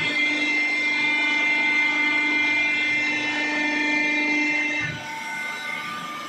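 Hydraulic pump and electric motor of a cardboard baling press running with a steady whine, dropping in level about five seconds in.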